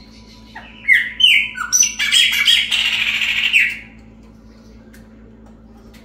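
Chopi blackbird (pássaro-preto) singing one short phrase, about three seconds long: a few clear whistled notes that each slide downward, running into a quick, harsher jumble of notes.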